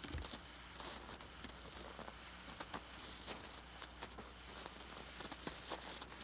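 Footsteps crunching on a packed snow pile: scattered light crunches and clicks at an irregular pace over a steady low hum.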